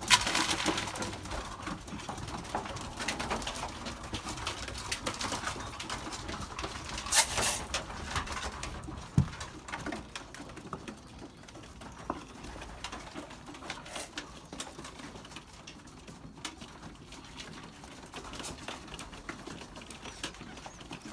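Young racing pigeons cooing, with scattered soft clicks and rustles. There is a brief louder rustling burst about seven seconds in.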